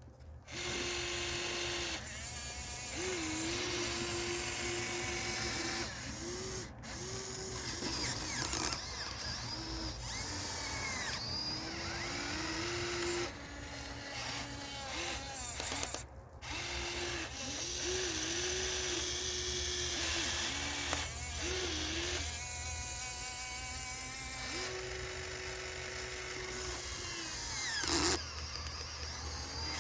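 Huina RC excavator's small electric gear motors whining, switching on and off every second or two with short rises and falls in pitch, over a steady low hum.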